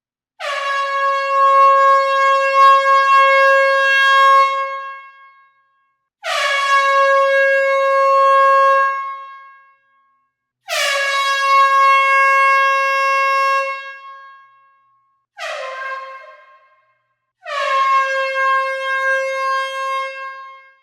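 Air horn sounding five loud blasts, each a single steady high note that settles quickly into pitch and then trails off. Four of the blasts are held for about three to four seconds, and the fourth, about two thirds of the way through, is short.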